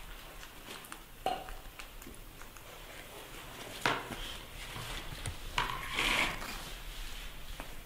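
A few scattered light knocks and clatters of handling on a hard floor, the loudest a single sharp knock about four seconds in, with a short scuffling burst around six seconds.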